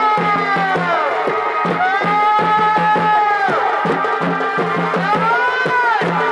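Chhau dance music: a shehnai plays long held notes that slide down at the end of each phrase, about every two and a half seconds, over steady folk drumming.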